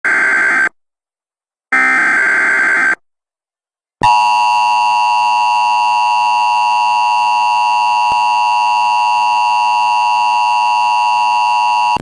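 Emergency Alert System activation for a tornado warning: two bursts of screeching SAME digital header data with silent gaps, then the steady two-tone EAS attention signal held for about eight seconds.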